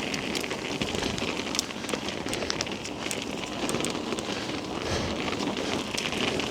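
Whyte E-160 electric mountain bike riding a wet, muddy forest trail: a steady crackle of tyres on grit and mud, broken by frequent sharp clicks and knocks from the bike, with the rider's heavy breathing in gusts.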